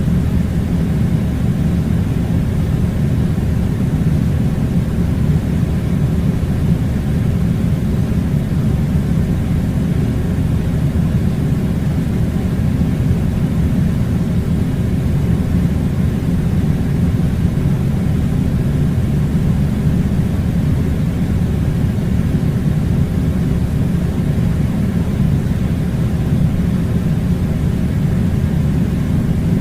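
Air conditioning unit blowing: a steady, low rumbling rush of air that does not change.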